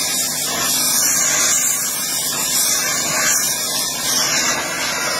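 Gas torch flame hissing steadily as it heats a steel hatchet blade to red heat.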